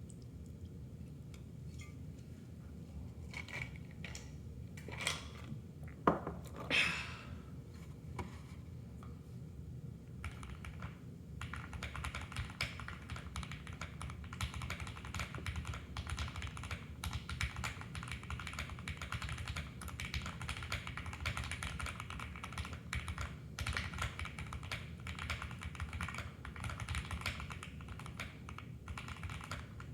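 Mechanical keyboard with lubed Banana Split linear switches on a POM plate: a few separate key presses for about the first ten seconds, some noticeably louder, then steady continuous typing.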